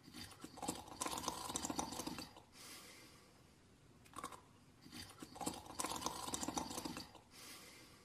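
Cartoon snoring: two long, rattling snores about four seconds apart, each lasting nearly two seconds.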